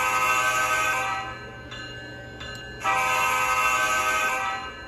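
Recorded Nathan K5LA five-chime air horn played through the small onboard speaker of an HO-scale Dash 9-40CW model's ESU LokSound 5 sound decoder. A steady chord blast that is already sounding ends about a second in, and a second blast of about a second and a half starts about three seconds in.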